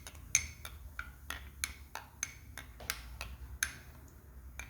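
A spoon stirring crushed chalk in a cup of liquid, clinking against the cup's side about three times a second, unevenly.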